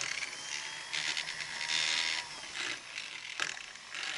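Irregular clicking, rattling and scraping as a Foredom flexible-shaft handpiece is handled and fitted to its shaft; no motor is running.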